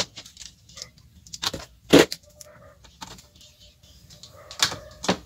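Handling of a power cord and its plug against a bench power supply and workbench: a few sharp knocks and clicks with light rattling in between, the loudest about two seconds in and two more near the end.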